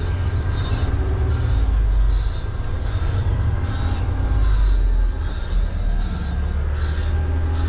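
Semi truck's diesel engine running with a low rumble that swells and eases every second or so, as the tractor-trailer is maneuvered into a trailer drop spot.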